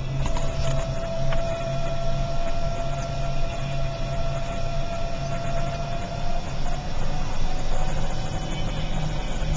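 Vehicle engine running at low speed as it drives slowly, a steady low rumble with a thin steady whine over it.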